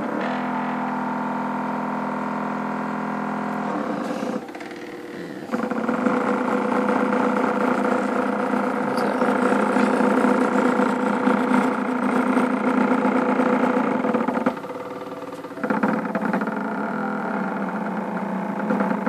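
Homemade belt-driven CNC machine built from photocopier parts running, its motors giving a steady whine of several pitched tones. The whine drops back twice for about a second, around four seconds in and again near the end, before resuming louder.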